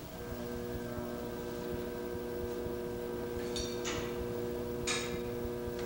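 Hands rubbing and smoothing wet clay on a potter's wheel, a few brief swishes between about three and a half and five seconds in, over a steady low hum.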